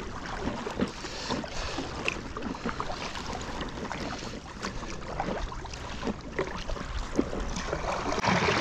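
Kayak paddle strokes: water splashing and dripping from the paddle blades as they dip into choppy lake water, irregular little splashes over a steady wash of water and wind.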